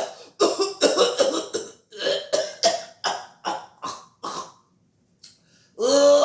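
An old man's voice, acted for a puppet, in a coughing fit: more than a dozen short coughs in quick succession that grow weaker over about four seconds. After a short pause the voice sounds again near the end.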